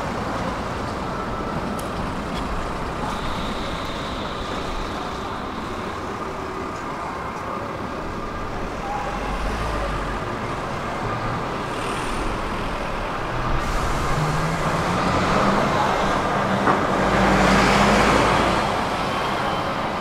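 Tram running on its rails with a steady rolling rumble. From about two-thirds of the way in, a low motor whine rises in pitch as the tram speeds up, and the sound is loudest near the end.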